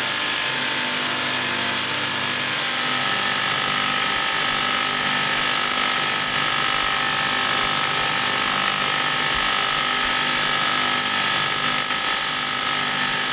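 Belt grinder running with a piece of steel pressed against the abrasive belt, throwing sparks: a steady grinding hiss over the motor's hum, its upper edge shifting a few times as the contact changes.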